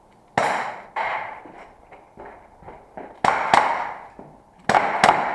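Airsoft revolver shots fired in quick pairs during a timed stage: sharp pops with a short echoing tail, about six loud ones with a couple of fainter knocks between.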